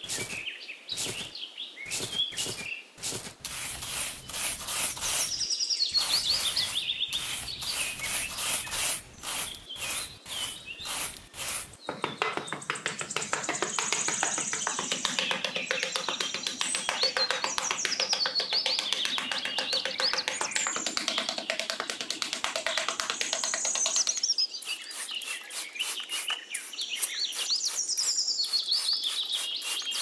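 Small metal hand trowel scraping through sand in quick repeated strokes, turning to a steadier smoothing scrape through the middle of the stretch, then back to short strokes near the end. Birds chirp throughout.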